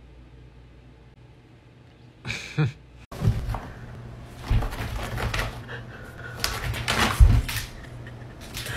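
Quiet room hum, then a small white furry pet romping on a rug and wooden floor: irregular thuds and scuffles, with a few short higher-pitched sounds among them.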